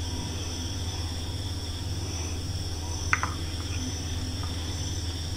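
A steel spoon scooping into bread pudding on a china plate, with one short clink of spoon against plate about three seconds in. A steady low hum and a steady high whine run underneath.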